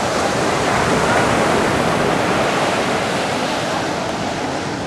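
Ocean surf: a wave breaking and washing up the beach in a steady rush that swells about a second in and then slowly eases.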